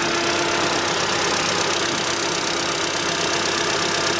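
Car engine idling cold, running evenly with no extraneous noises. The hydraulic-lifter tap that this engine develops once hot is not yet present.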